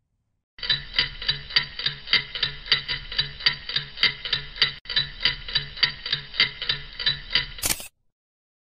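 Ticking-clock sound effect, an even tick about four times a second over a soft low pulse; it stops suddenly near the end.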